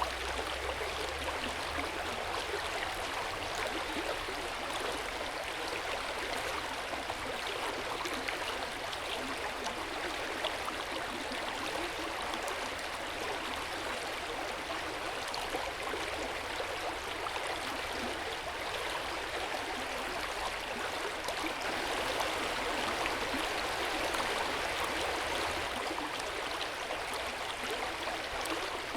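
Hot-spring water flowing and splashing steadily into an open-air bath, a continuous gentle gurgle. It swells a little for a few seconds past the middle.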